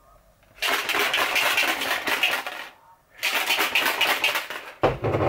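Plastic protein shaker bottle being shaken hard in two bursts of about two seconds each, the liquid sloshing and rattling as a protein shake is mixed; a short thump near the end.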